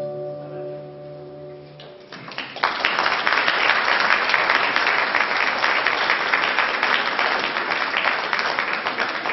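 A polyphonic choir's final held chord fades away. About two seconds in, audience applause breaks out and carries on steadily.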